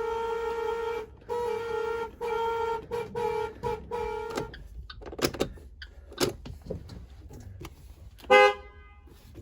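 School bus horn sounded as one steady single-pitched tone: a long blast, then a string of short toots that stop about halfway through. A few clicks and knocks follow, then one short, loud toot near the end.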